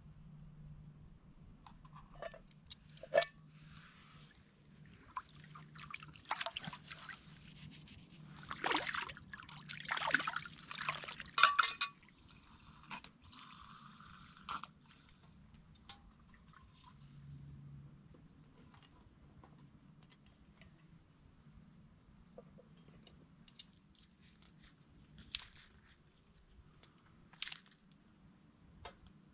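Water pouring and dripping, with scattered sharp clicks and knocks, busiest in the first half.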